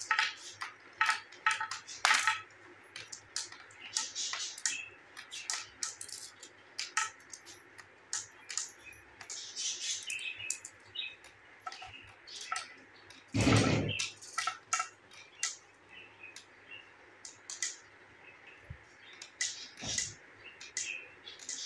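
Glass marbles clicking and clinking against each other and the plastic chutes as they are set down one at a time and roll up into a queue, in irregular sharp ticks. A louder, heavier knock comes about two-thirds of the way through.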